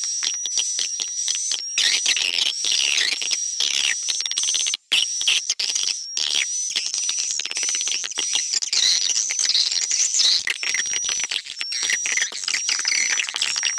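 Recorded swiftlet calls played back as a swiftlet-house lure: dense twittering and chirping, with a short high steady tone repeating over and over. The track is the 'tarik' attraction call mixed with the 'inap' roosting call. There is a brief gap about five seconds in.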